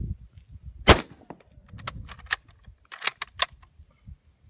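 A single rifle shot from a Mosin-Nagant 91/30 fitted with a Howling Raven muzzle brake, about a second in, followed by a run of smaller sharp clicks and clacks over the next two and a half seconds.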